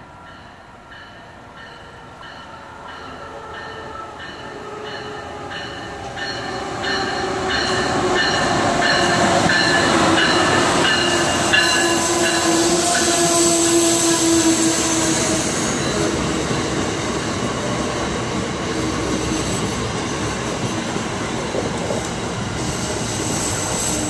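Amtrak ACS-64 electric locomotive and its passenger train approaching and passing close by at a station. It grows louder over the first ten seconds with regular clicks about twice a second. A steady tone sounds as the locomotive goes by, and then the passenger cars rumble past.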